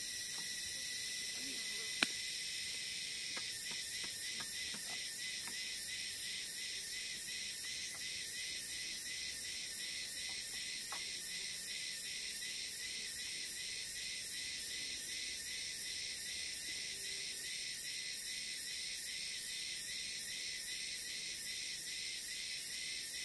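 Forest insects in a steady high-pitched chorus. A few seconds in, it takes on a quick regular pulse of about two to three beats a second. A single sharp click comes about two seconds in.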